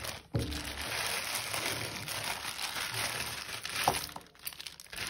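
A clear plastic bag crinkling as it is handled and tipped out, with jewellery (beads, bangles and metal pieces) sliding and clinking as it spills onto the mat. Two sharper knocks stand out, one just after the start and one about four seconds in.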